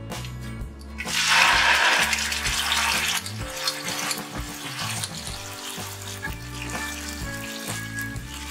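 Wet cauliflower-leaf paste hitting hot mustard oil in a wok: a loud sizzle starts about a second in and settles after a couple of seconds into a quieter frying hiss. Background music plays throughout.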